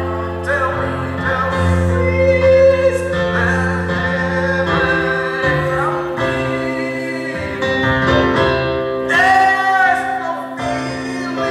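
Hymn singing with electronic keyboard accompaniment: voices carry the melody over held chords that change every second or two.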